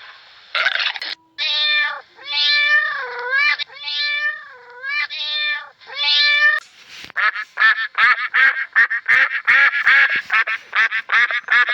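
A cat meowing about six times in a row, each meow a bit over half a second with the pitch bending. From about seven seconds in, a different animal gives a fast run of short, pitched calls, several a second.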